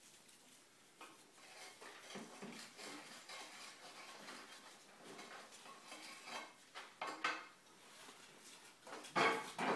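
Irregular clinks and knocks of hard objects, sparse at first and loudest in a short clatter near the end.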